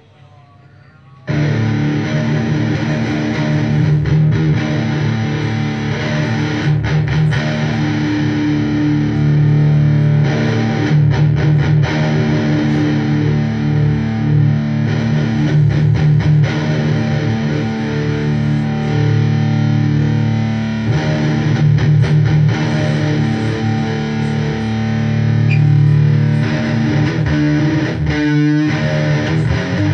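Ibanez electric guitar played through a Marvell amplifier head and cabinet on its distortion channel with the tone controls set flat: loud distorted playing that starts about a second in after a short quiet moment.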